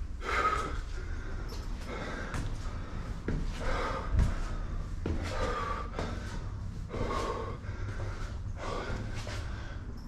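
A man breathing hard while climbing many flights of stairs, about one heavy breath a second.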